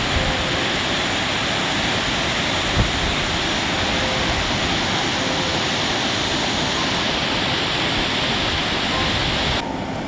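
Whitewater river rapids rushing steadily, a dense, even hiss of churning water. Near the end it changes abruptly to a slightly quieter, duller rush.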